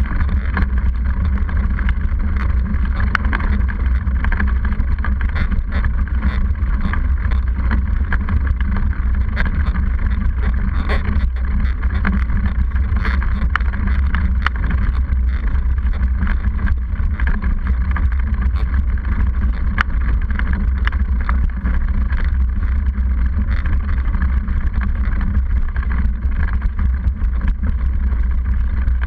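Mountain bike rolling over a rough, cracked paved road, heard through a seatpost-mounted camera: a constant heavy low rumble with many small rattling clicks from the bike and camera mount shaking.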